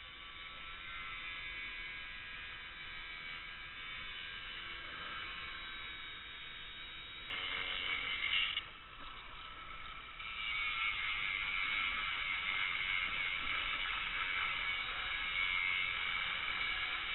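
Angle grinder running with its disc cutting into the steel of a plough: a steady high whine with a grinding hiss. The sound changes abruptly about seven seconds in and is louder from about ten seconds in.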